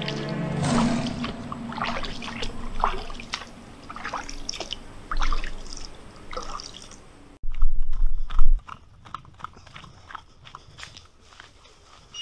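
Music fades out in the first second, then water splashes and drips in scattered small bursts. From about seven seconds in, wind buffets the microphone in loud low gusts, with light clicks.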